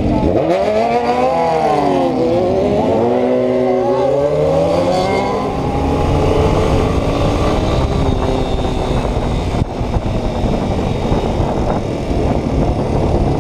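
Yamaha Ténéré 250 single-cylinder motorcycle engine revving, its pitch dropping and climbing several times in the first half, then running more steadily at speed.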